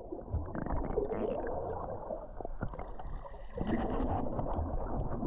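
Muffled sea water sloshing and gurgling around a GoPro at the surface during a swim, with a low rumble and small scattered clicks.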